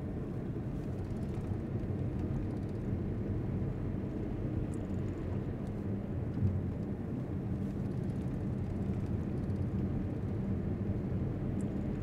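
Steady engine and road noise of a car driving along, heard from inside the cabin as a low, even hum.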